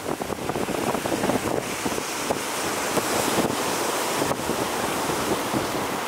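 Sea waves breaking and washing over a rocky shore: a steady wash of surf.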